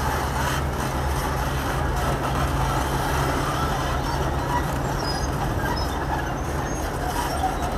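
Diesel engines of working excavators and dump trucks running steadily with a low drone. The drone's note shifts slightly about five and a half seconds in.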